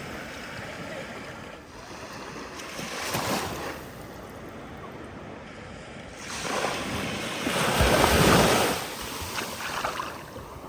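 Sea waves washing in: a smaller wave about three seconds in, then a louder one building from about six seconds and loudest near eight.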